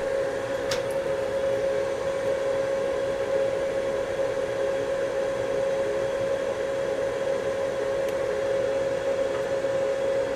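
Hot air rework station blowing steadily at high flow (60) onto an SSD controller chip to desolder it: a rush of air with a steady mid-pitched hum from the blower.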